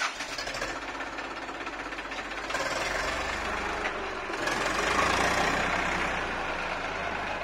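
Tractor's diesel engine running as the tractor drives off. The engine gets louder about two and a half seconds in and again about four and a half seconds in.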